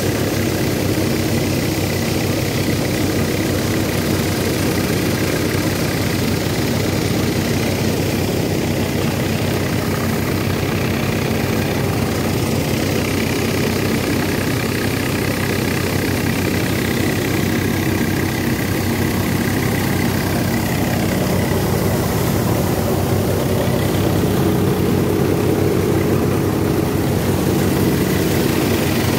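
National thresher running steadily while bundles of dry crop stalks are fed into it: a continuous loud machine drone with a steady low hum and no change in pace.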